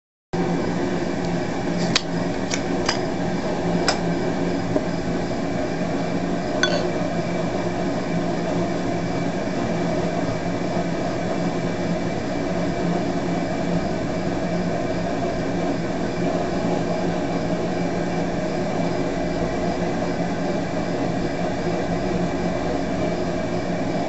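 A steady machine hum made of several steady tones. A few sharp glass clinks come in the first seven seconds or so as a bottle of beer is poured into a glass.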